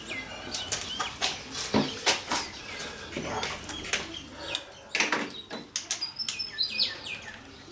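A string of sharp clicks and knocks from hand tools and parts being handled while the motorcycle's front fairing is taken off, with birds chirping in the background, most clearly near the end.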